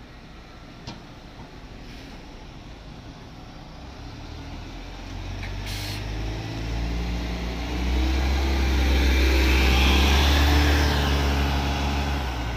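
Volvo B9TL double-decker bus's 9-litre six-cylinder diesel engine pulling away from a stop. It grows louder as the bus accelerates past, with a brief hiss about six seconds in, peaks about ten seconds in, then fades as the bus drives off.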